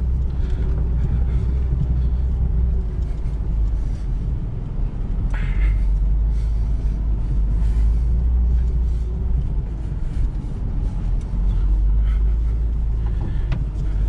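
Lada Niva Travel driving over rough ground, heard from inside the cabin: a steady low rumble of engine and tyres, with a few sharper knocks from the suspension taking bumps, one about five seconds in and another near the end.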